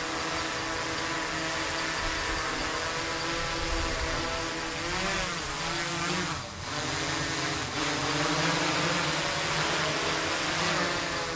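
DJI Mavic 3 Cine quadcopter hovering, its propellers making a steady hum of several held tones. Around the middle the pitch wavers and dips briefly, then settles again.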